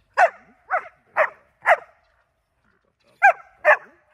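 A dog barking: six short barks, four in quick succession and then, after a pause, two more.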